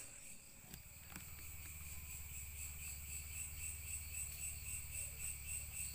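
Night insect chorus: a steady, finely pulsing high trill at two pitches, with a low steady hum coming up about a second in.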